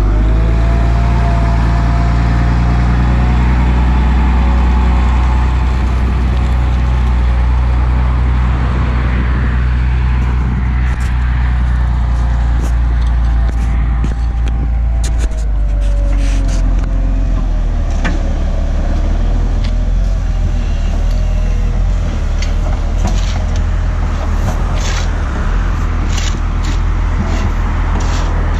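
Volvo G710B motor grader's diesel engine running steadily at close range, with a whine that wavers in pitch. From about ten seconds in, scattered sharp crunching and scraping of gravel.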